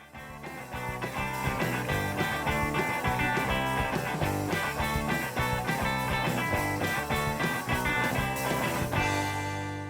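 Background rock music with electric guitar and a steady beat, ending on a held chord that fades out near the end.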